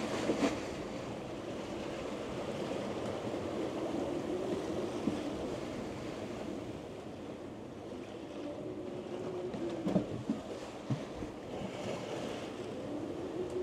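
Seawater rushing and splashing along a sailboat's hull under sail, with wind noise. A few sharp knocks come about ten seconds in.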